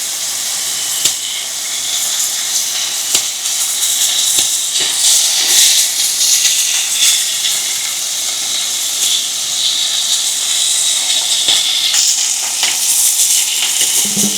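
Meat sizzling on a hot grill: a steady hiss with scattered small pops and crackles.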